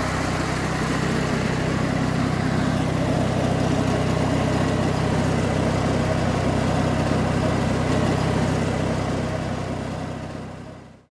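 Briggs & Stratton opposed flathead twin engine on a lawn tractor running steadily, fading out near the end.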